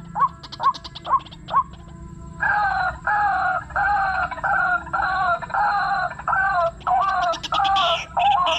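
White-breasted waterhen calls. Short notes come about two a second, then after a short pause a louder, steady series of two-part croaking calls about two a second, with higher falling notes joining near the end.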